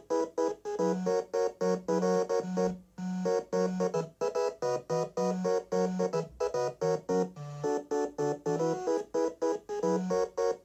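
Electronic music played by a Dragon 64 home computer through its internal 6-bit DAC, a demo file from the ported Orchestra-90 CC software running without the cartridge. Short, detached notes in several voices over a bass line, with brief breaks between phrases.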